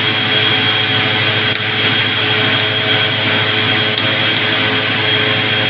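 Loud, steady machine whir: a constant roar with a steady hum and a thin high whine, with no change in level or pitch.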